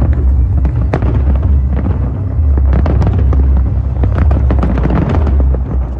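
Fireworks display: many aerial shells bursting and crackling in quick succession over a continuous low rumble.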